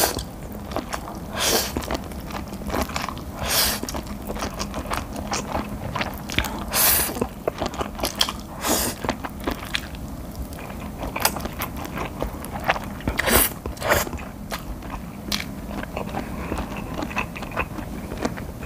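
Close-miked slurping and chewing of Buldak spicy stir-fried instant noodles: repeated loud slurps every couple of seconds, with wet chewing and small mouth clicks between them.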